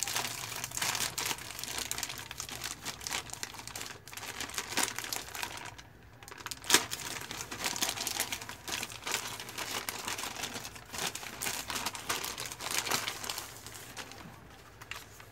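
Plastic courier mailer bag crinkling and rustling as hands tear it open and pull the contents out. A sharp crackle comes a little before halfway, and the rustling dies down near the end.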